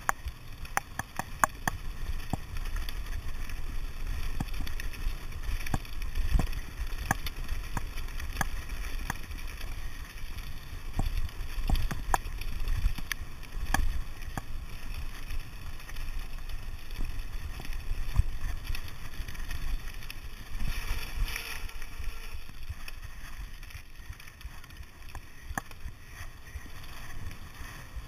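Downhill mountain bike with a dual-crown fork rattling over a loose, stony track, with a constant low rumble, many sharp knocks and clatters from stones and the bike, and wind buffeting the microphone. There is a brief hiss about two-thirds through, and the sound turns quieter and smoother near the end as the tyres run onto tarmac.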